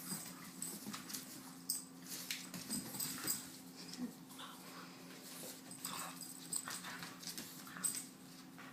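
Shar-Pei puppies playing together: short, scattered dog noises and scuffles. A steady low hum runs underneath.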